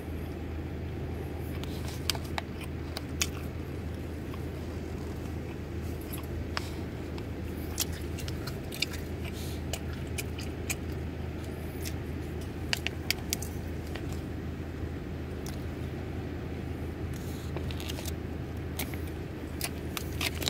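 Steady low hum of a car's cabin with the engine running, with scattered sharp clicks and crinkles as the beef jerky and its plastic wrapper are handled and chewed.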